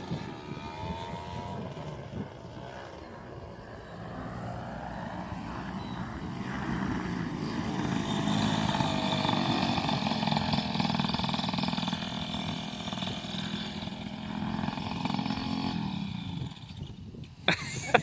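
AC Nitro 200 paramotor engine and propeller droning in flight, growing louder toward the middle and then dropping away about three seconds before the end.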